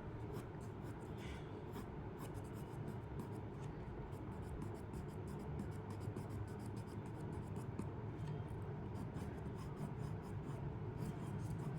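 Soft 8B graphite pencil scratching across drawing paper in many quick, short shading strokes.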